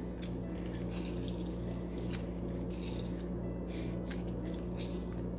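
Lime juice dripping from a hand-squeezed lime half into a pot: a few faint separate drips over a steady low hum.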